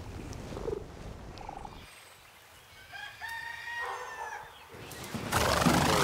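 A rooster crows once, one drawn-out call about three seconds in. Near the end a louder rushing noise comes in.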